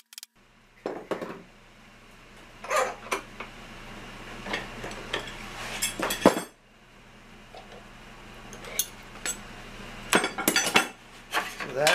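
Hammer blows bending the narrow aluminium tabs of a fuel-tank baffle over the edge of a clamped wooden board: a dozen or so irregular knocks with metallic clinks, over a faint steady low hum.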